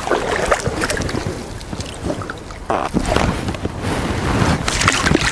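Water splashing and sloshing as a mesh fish keepnet is lifted and handled in shallow river water, with louder splashes about three seconds in and near the end. Wind buffets the microphone.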